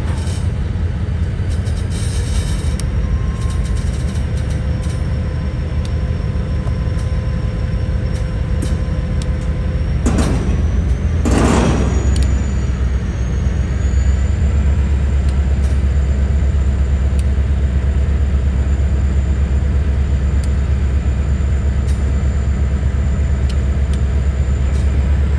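Heavy diesel engine running with a steady low rumble that grows louder a little past halfway, with two short bursts of noise about ten and eleven seconds in and a faint high whine above.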